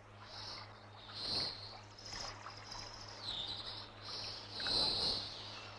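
A series of soft, high chirping calls from a wild creature, about one a second, the strongest near the end, over a steady low hum of the old film soundtrack.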